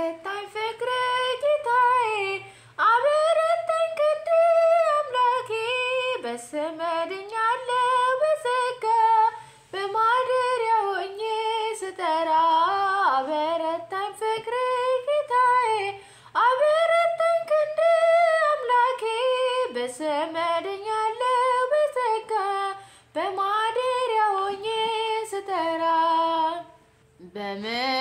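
A woman singing an Ethiopian Orthodox hymn (mezmur) in Amharic, unaccompanied, in phrases of a few seconds with short pauses for breath between them.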